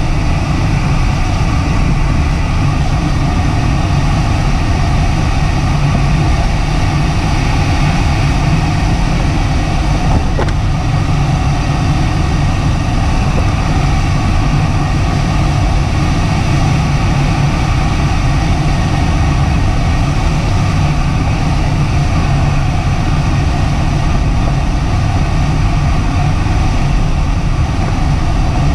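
Steady rush of airflow over a DG-800 glider's canopy and fuselage in fast ridge flight, heard from inside the cockpit as an even, low-heavy roar.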